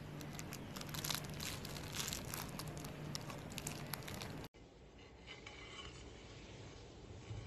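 Plastic wrapping crinkling and crackling around a metal loaf tin as it is handled. About halfway through it cuts to quieter, softer handling sounds.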